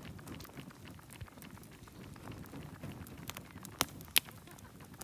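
Wood campfire crackling, with a running patter of small pops and two sharp, loud pops close together about four seconds in.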